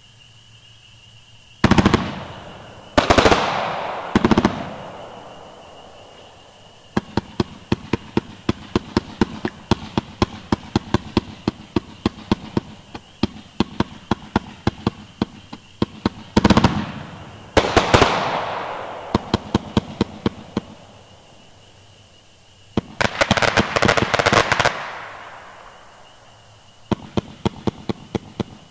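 A 500-gram aerial repeater cake firing. Three loud bangs come in the first few seconds, each ringing out as it fades. Long runs of rapid sharp reports, several a second, follow, broken by two more big bangs midway and a dense crackling flurry near the end.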